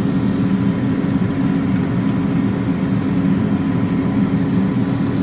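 Steady, loud machine hum with a few faint light clicks.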